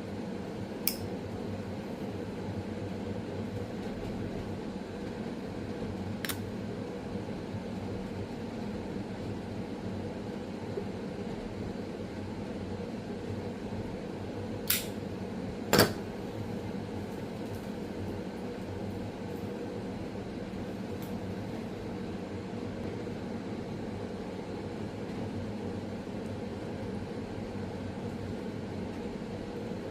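Steady mechanical hum of a fan or air-conditioning unit in a small room, broken by a few sharp clicks: one about a second in, one about six seconds in, and two close together about halfway through.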